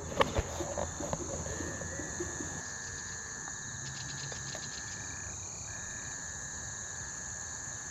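Chorus of calling insects and frogs: several steady high-pitched trills overlapping, with a short burst of rapid clicking about four seconds in.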